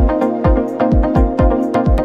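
Electronic dance music: a steady kick-drum beat, about two beats a second, under sustained synth chords.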